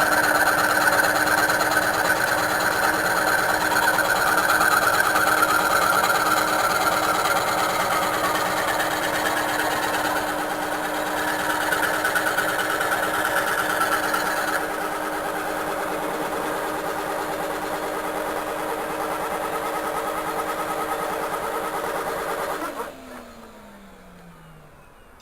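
Homemade scroll saw running and sawing through steel angle about 2 mm thick, a steady mechanical drone with several held tones. About 23 seconds in it is switched off and the motor winds down with a falling tone.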